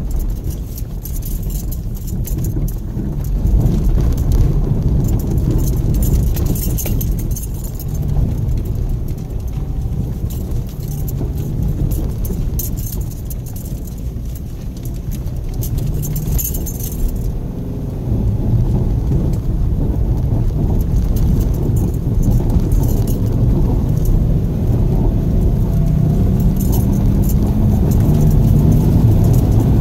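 In-cabin sound of a 2014 Subaru XV Crosstrek's flat-four engine driving slowly over a rough dirt road: a steady low rumble of tyres and suspension with constant jingling and rattling over the bumps, and the engine note rising near the end as it speeds up.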